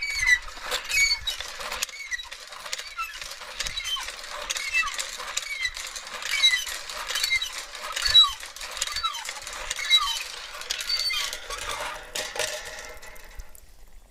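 Cast-iron hand-operated well pump being worked by its lever handle, squeaking rhythmically with each stroke. Near the end the squeaks stop and water runs from the spout.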